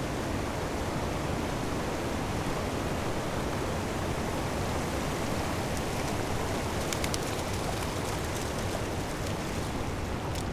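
Steady rush of river water, an even hiss with no pitch. Light clicks come in over the second half.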